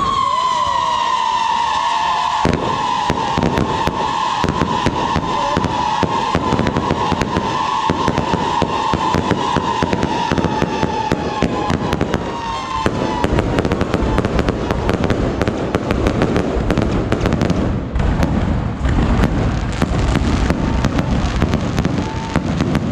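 Fireworks going off in a dense, continuous barrage of crackles and bangs. Over the first half a long high tone with overtones sinks slowly, then fades as the crackling thickens.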